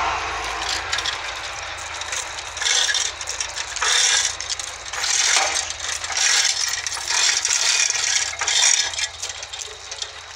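Heavy steel chains rattling and clinking in repeated bursts, about once a second, as they are pulled and worked around a large log.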